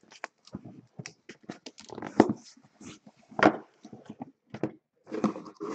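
Cardboard shipping case being handled and an inner carton slid out of it: irregular short scrapes, creaks and taps of cardboard on cardboard.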